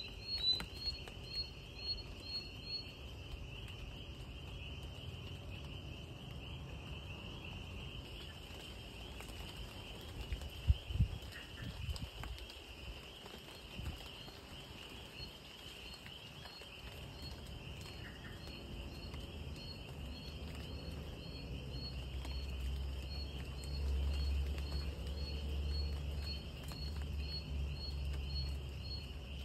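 Night chorus of crickets, a steady high trill. A louder chirp repeats about twice a second for the first few seconds and returns fainter near the end. There is a single low thump about 11 seconds in.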